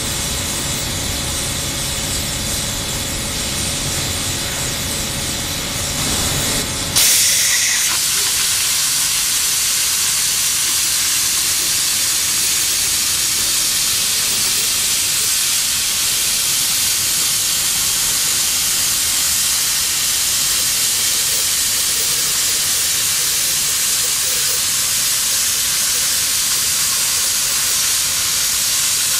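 CNC plasma torch cutting a steel beam: a loud, steady, high hiss of the plasma arc and cutting gas. For the first seven seconds there is a lower, duller running noise with a faint steady hum; then the hiss jumps up sharply and holds steady.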